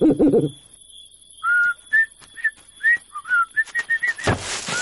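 A person whistling a tune of short, clear notes with small pitch slides. A brief low sound comes just before it, and a breathy rushing noise follows near the end.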